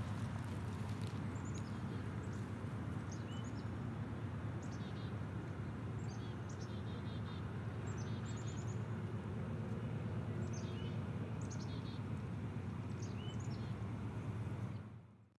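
Small birds calling in short repeated chirping phrases every second or two over a steady low rumble. The sound fades out near the end.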